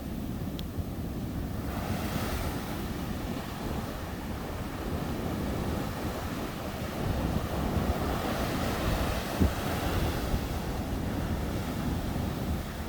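Sea waves breaking and washing up the beach, a continuous surf noise with a low rumble. The hiss of the surf swells about two seconds in and again around eight seconds, as waves break. Wind is buffeting the microphone.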